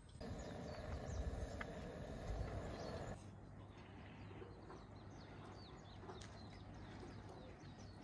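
Birds chirping over outdoor ambience. For the first three seconds a louder, steady low noise sits under them and cuts off suddenly about three seconds in.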